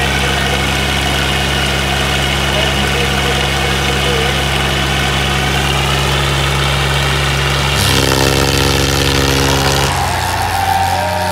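Diesel tractor engines running steadily, then pushed harder about eight seconds in, louder and rougher for about two seconds, as the tractors go under load in a tug-of-war pull.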